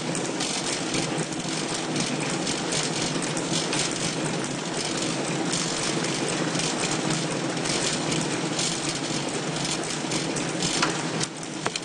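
Automatic packaging machine for plastic cards running, a steady mechanical clatter with many small clicks and a couple of sharper clicks near the end.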